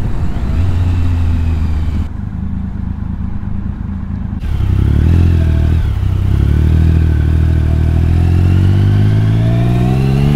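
Triumph Speed Triple's inline three-cylinder engine heard from the rider's seat, running low and quieter for a couple of seconds through a slow turn, then pulling away. After a brief dip about six seconds in, its pitch rises steadily as the bike accelerates.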